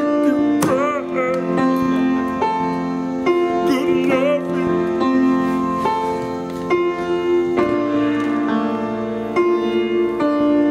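A slow soul song on acoustic piano with sustained chords. A voice sings brief wavering runs about one second and four seconds in.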